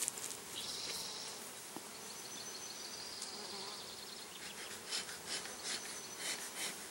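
Steady buzzing of a mass of Italian honeybees around an opened package, with a run of short scratchy handling noises in the last two seconds as the package is gripped.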